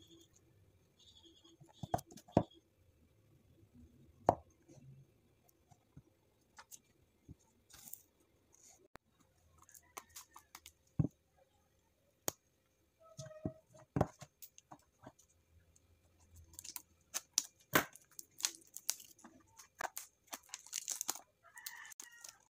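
Scattered sharp clicks and taps from a cardboard box being handled, then a denser run of crinkling and tearing from about two-thirds through as the clear plastic shrink wrap is peeled off the box.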